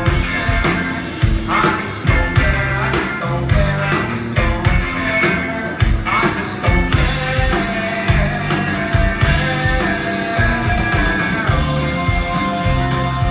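A rock band playing live: a steady drum beat under guitar, with singing.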